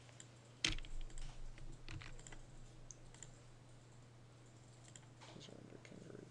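A handful of sharp computer mouse and keyboard clicks, the loudest about two-thirds of a second in and a few more over the next second and a half, then only faint ticks over a steady low hum.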